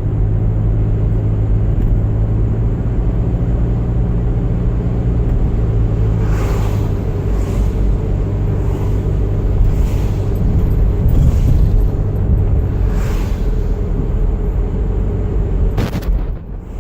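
Car driving on a winter road, heard from the car: a steady low rumble of engine and tyres. From about six seconds in there is a run of short hissing sounds about a second apart, and a sharp click near the end.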